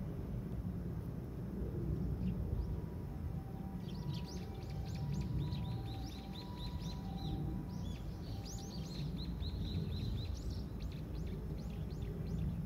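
Eurasian tree sparrows chirping in quick runs of short, high chirps, starting about four seconds in, over a steady low background rumble.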